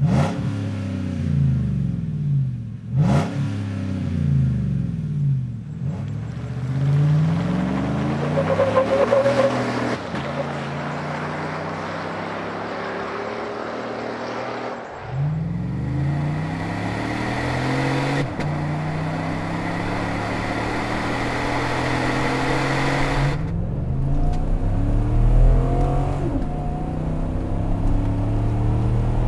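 Chevy Silverado's 5.3L V8 through a Magnaflow MF Series side-exit stainless exhaust, a deep exhaust note. It is revved and settles back several times, then accelerates and drives past. Near the end it is revved to about 4,000 rpm, heard from inside the cab.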